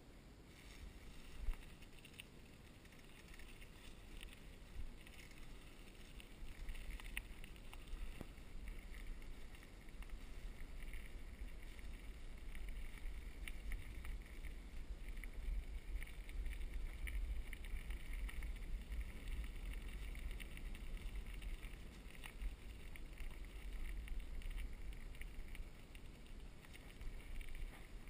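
Cannondale bicycle rolling along a leaf-covered dirt trail: a steady low rumble with a faint crackle of tyres over dry leaves and small ticks and rattles from the bike, with one sharp click about a second and a half in.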